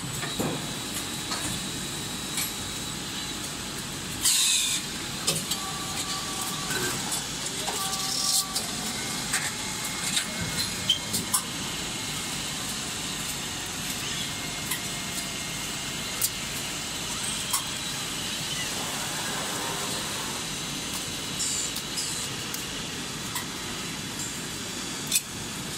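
Automatic cable coiling and packing line running: a steady machine noise with scattered clicks and clanks, broken four times by short hisses of compressed air released from its pneumatic cylinders.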